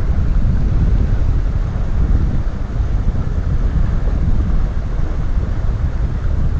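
Wind buffeting the microphone over the steady rush of a shallow, rippling river.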